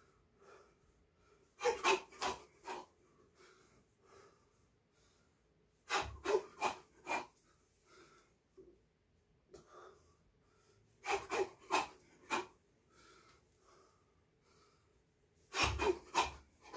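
Sharp, forceful exhalations with each strike of quick shadowboxing combinations, in four rapid bursts of four or five breaths, about every four to five seconds. A dull thump comes in two of the bursts.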